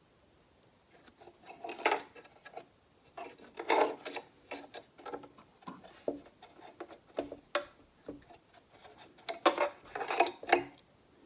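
Stiff brush scrubbing lint out of a sewing machine's bobbin area: short bouts of scratchy brushing strokes against the metal, with light clicks and taps between them. The loudest bouts come about two, four and ten seconds in.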